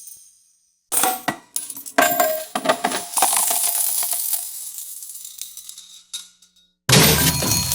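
Coins clinking and jingling in a money-win sound effect. A quick run of metallic clicks comes first, then a ringing tone that fades out over a few seconds. A new loud burst of jingling starts near the end.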